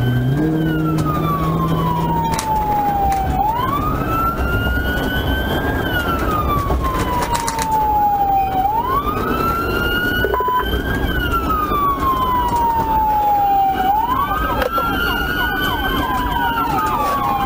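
Police siren wailing in a slow rise and fall, about once every five seconds, heard from inside a patrol car over engine and road noise.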